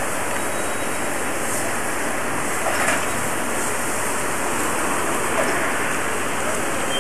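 Steady hiss of steam from the standing steam locomotive 03 1010, with a single faint knock about three seconds in.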